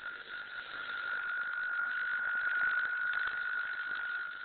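Ultrasonic cell disruptor's wand-shaped probe running in air rather than in liquid, giving a steady high whine on one unchanging pitch over a faint hiss.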